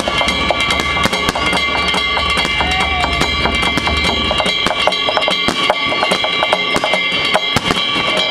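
Festival drumming from the river boats, a steady beat of drums under several high ringing tones, with many sharp bangs and cracks scattered through it. A low rumble stops about halfway through.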